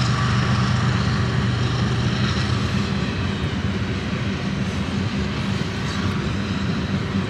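A crop-duster airplane's propeller engine droning steadily, together with the rolling noise of a CSX freight train's covered hopper cars passing on the rails. A low engine hum fades about three seconds in.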